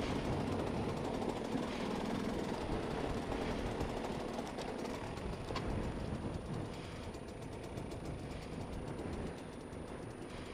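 Dirt bike engine running at low revs, a steady knocking rumble that gradually grows quieter.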